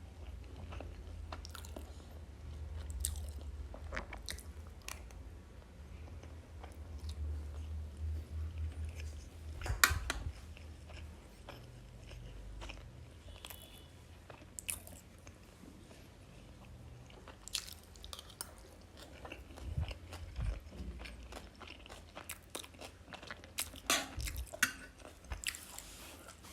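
Close-miked chewing and biting of food, with soft crunches and wet mouth clicks scattered throughout and one sharper click about ten seconds in.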